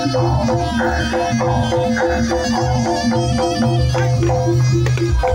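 Jaranan music played live: a traditional Javanese percussion ensemble of drums and struck pitched metal percussion in a fast repeating pattern of short notes.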